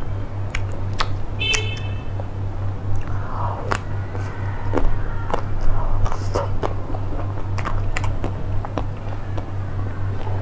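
Close-miked mouth sounds of eating an ice cream bar: bites, licks and wet chewing clicks, scattered and irregular, over a steady low hum.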